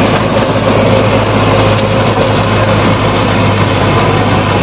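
Eicher 551 tractor's diesel engine running steadily under heavy load as it pulls a rotavator with the hydraulic lever fully down, the tiller digging into dry soil.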